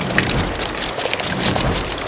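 Crab sound effect: dense, rapid crackling and clicking, with two low rumbling swells.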